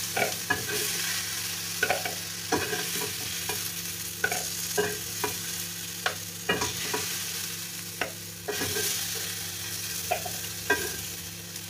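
Pieces of browned onion, tomato and garlic being picked out of a hot non-stick frying pan and dropped into a glass food-processor bowl: a dozen or so sharp, irregular taps and clicks over a steady sizzle from the pan, which has only just been switched off.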